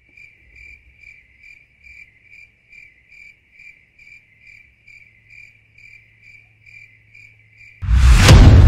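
Cricket chirping steadily and faintly, about two chirps a second. Near the end a sudden loud boom cuts in over it.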